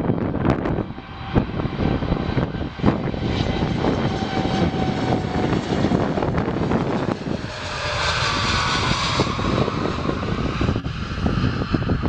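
Boeing 787-9 twin jet engines running at takeoff thrust: a steady loud roar with a thin whine, which grows stronger and higher about eight seconds in.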